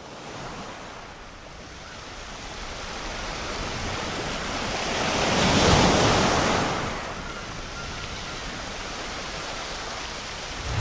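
Rushing sea surf and wind noise, an even hiss that swells to a peak about six seconds in and then settles to a steady lower rush.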